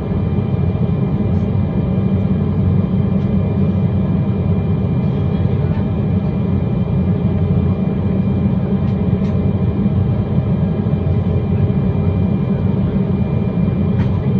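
Cabin noise inside an Embraer 195 airliner taxiing after landing: its GE CF34-10E turbofans running at idle. It is a steady low rumble with faint, high, steady whine tones over it.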